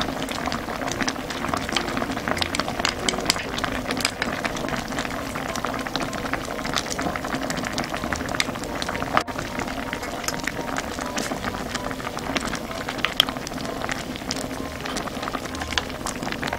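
Doenjang stew boiling in an earthenware pot: a steady bubbling with many small pops throughout.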